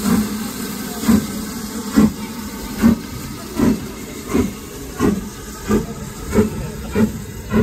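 Steam locomotive pulling away from a stand, its exhaust chuffing about once a second at first and quickening to nearly two a second, over a steady hiss of steam.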